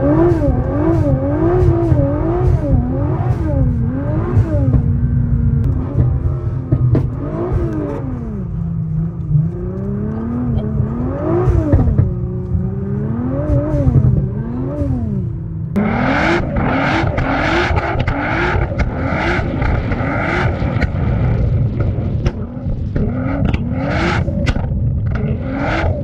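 Tuned Nissan R35 GT-R's twin-turbo V6 revving up and down over and over as it is driven on a snowy road. From about two-thirds of the way in, the sound turns brighter and harsher, with a run of quick crackles.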